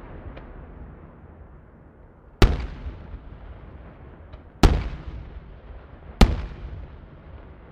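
Aerial firework shells bursting: three loud bangs about two seconds apart, each trailing off in a long rolling echo.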